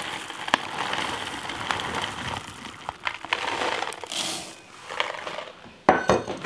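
Mini chocolate chips rattling from a crinkling plastic bag into a metal measuring cup, scraped level with a spatula, then tipped with a brief pour into a bowl of flour and powdered sugar. A few sharp knocks near the end.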